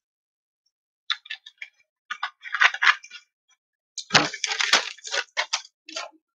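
Crinkling, crackling handling noise from a plastic bottle and papers: scattered sharp crackles and clicks begin about a second in and grow denser, with a few dull knocks between about four and five seconds.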